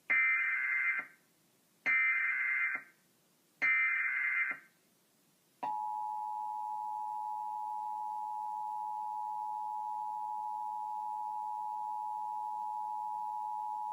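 Emergency Alert System SAME header: three roughly one-second bursts of modem-like data screech about two seconds apart, then the two-tone EAS attention signal (853 Hz and 960 Hz sounded together) held steady for about eight seconds. The header and tone announce the National Periodic Test and precede its spoken message.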